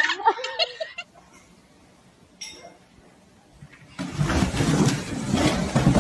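Cardboard box sliding and bumping down a flight of wooden stairs, a loud scraping rumble that starts about four seconds in and lasts about two seconds.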